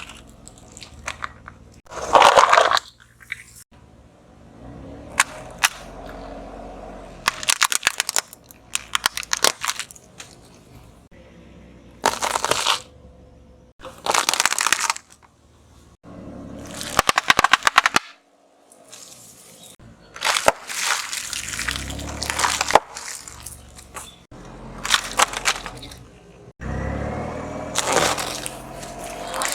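A car's tyres rolling over and crushing objects, a run of loud crunching and crackling bursts, each a second or so long, with a low rumble of the car between them.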